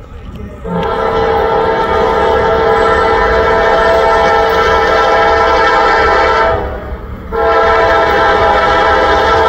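Air horn of a Norfolk Southern AC44C6M lead locomotive on an approaching freight train. It sounds one long steady chord of about six seconds, then, after a short break, a second long blast that carries on. The locomotives' diesel engines run low underneath.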